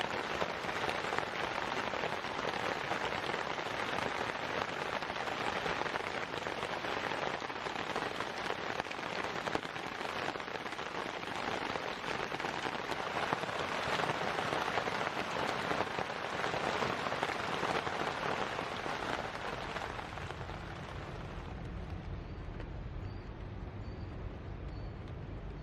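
Rain pattering steadily on a tarp. About twenty seconds in the patter drops away, leaving a quieter low rumble with a few faint high peeps.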